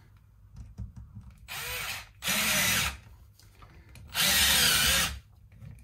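Small cordless drill-driver running in three short bursts, the first quieter, as it drives the screw of a strap button into a wooden guitar body.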